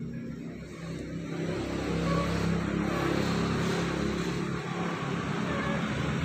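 A steady motor hum with a broad rushing noise that grows louder about a second and a half in and then holds.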